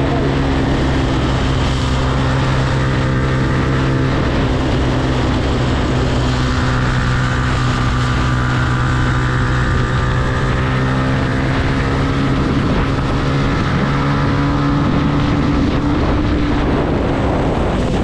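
Yamaha R15 motorcycle's single-cylinder four-stroke engine running at a steady pace while riding, with wind and road noise over it.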